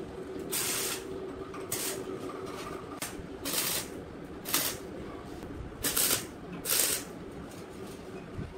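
Stick welder striking short tack welds on a steel tube frame: six brief bursts of arc noise, each under half a second, at uneven intervals over a steady low hum.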